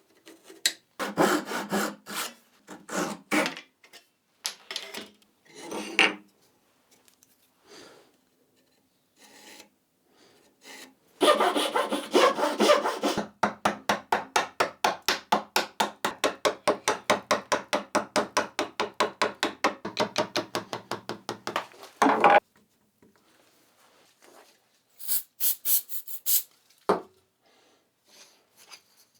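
A hand tool working back and forth through wood in quick, even strokes, about four a second, for several seconds in the middle. There are shorter bursts of the same work earlier and a brief high hiss near the end.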